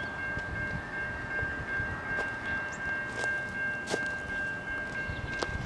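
Adelaide Metro 4000-class electric railcar standing at the platform: a steady high-pitched electrical whine over a low rumble, with a few faint clicks.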